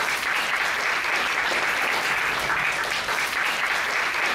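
Audience applauding at a steady level.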